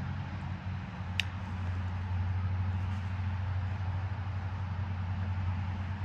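A steady low mechanical hum, with one short high chirp about a second in.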